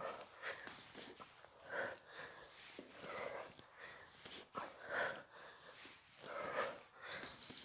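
A woman breathing hard through a fast bench exercise, with short forceful exhales and sniffs about every second or so and light scuffs of shoes on the floor. A short high beep comes near the end.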